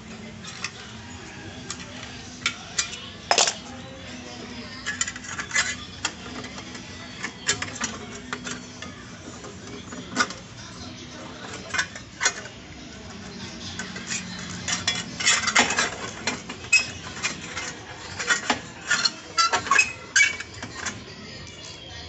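Metal hand tools such as pliers clicking and clinking against metal parts in irregular sharp taps, busiest in the second half, over a faint steady hum.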